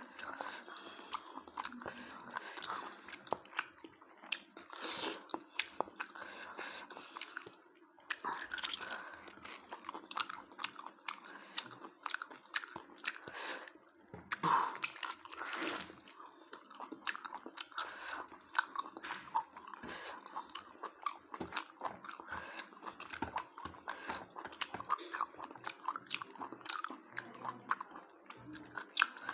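A person chewing and biting food close to the microphone: a steady, irregular run of wet mouth sounds and sharp clicks, with occasional louder crunches.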